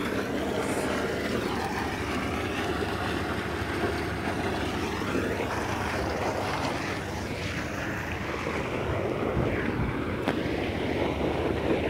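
Water gushing from a large pipe into a pond, a steady rushing.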